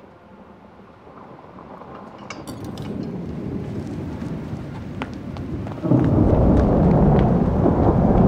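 Thunderstorm: a rumble of thunder with rain that swells over several seconds, then turns much louder and heavier about six seconds in, with a few light clinks along the way.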